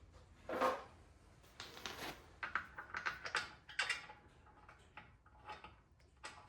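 A run of irregular light clicks and metallic clatter as lug nuts and tools are handled at a car's wheel hub, with a soft rustle about half a second in.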